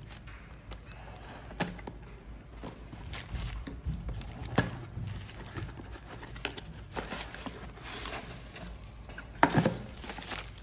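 Hands opening a small cardboard box: scattered taps and scrapes of cardboard flaps. Near the end comes a louder rustle and crinkle of newspaper wrapping as a paper-wrapped piece is lifted out.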